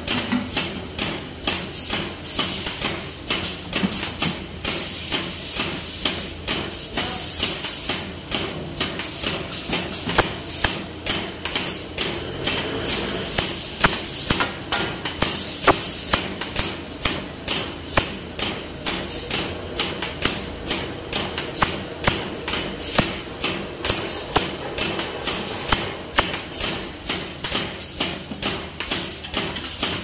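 Double-head automatic paint filling line running with a steady, regular knocking, about one and a half knocks a second, over a constant machine hum. A few sharper metallic clanks come from steel paint pails handled on the roller conveyor.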